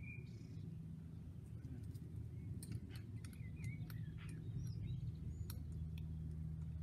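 Birds chirping faintly over a steady low rumble, with a few sharp clicks in the middle.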